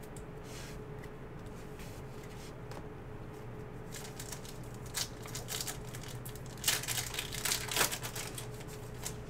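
Foil wrapper of a Donruss Elite football card pack crinkling and tearing as it is opened by hand. The rustling starts about four seconds in and is loudest near the end, over a faint steady hum.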